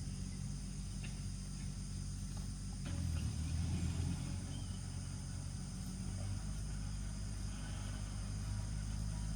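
Steady high-pitched chorus of crickets or other insects over a low, steady hum, with a brief low rumble about three seconds in.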